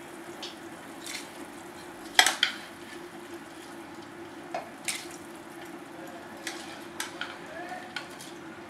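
Metal utensils clinking and knocking against an aluminium pressure cooker as soaked rice is added to its boiling water: a handful of sharp clinks, the loudest about two seconds in, over a steady low background.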